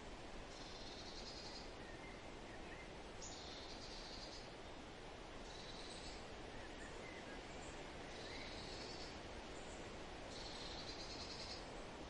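Forest ambience: a steady, faint wind hiss under a bird singing short high phrases, five of them, each about a second long and spaced about two seconds apart, with a few fainter chirps in between.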